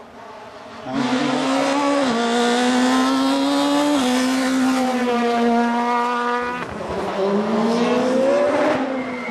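Race car engines at high revs. A tuned Volkswagen Golf Mk1 race car comes in loud about a second in, its pitch dropping in steps. About six and a half seconds in, a sports prototype race car takes over, its engine pitch climbing as it accelerates.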